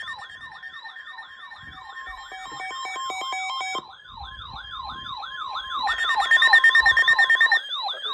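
Electronic siren tones layered together: a fast warble up high and a falling yelp that repeats about three times a second, over a steady held tone. They get louder about six seconds in and drop back near the end.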